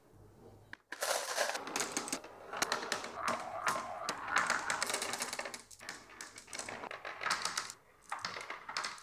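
Steel marbles clicking and clattering against each other and the 3D-printed plastic ramps as they are loaded onto the ramps by hand. The dense clicking starts about a second in and dips briefly near six seconds.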